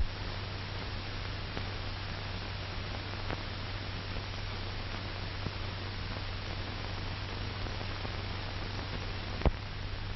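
Steady hiss and low hum of an old 1940s film soundtrack, with a few faint clicks and one sharp pop near the end.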